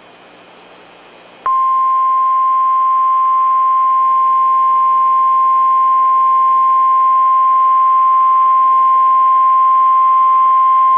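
Emergency alert warning tone, in the style of the NOAA Weather Radio 1050 Hz warning alarm. It is a single loud, steady beep at one pitch that starts abruptly about a second and a half in and holds for about ten seconds before cutting off. It signals that a tornado emergency broadcast message is about to follow.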